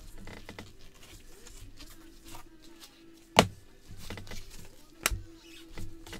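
Trading cards handled with gloved hands: soft rustles and slides as cards are shuffled through a stack, with a sharp tap about three and a half seconds in and a second, smaller one about five seconds in, over a faint steady hum.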